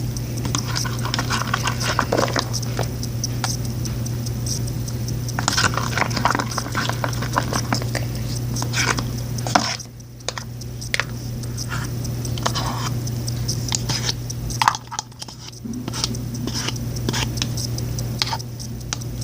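Homemade slime being stirred and worked in a bowl: irregular sticky squishing, crackling and small clicks against the container as it comes together, over a steady low hum.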